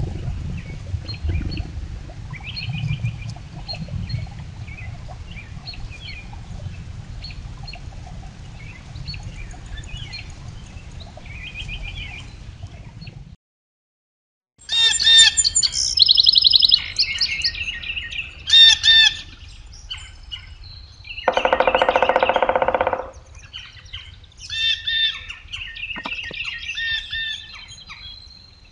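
Wild birds chirping and calling in winter woodland, picked up by a trail camera. For the first half, faint chirps sit over a low rumble. After a brief gap about 13 seconds in, louder, closer calls with repeated notes follow, including one long, lower call lasting over a second about 21 seconds in.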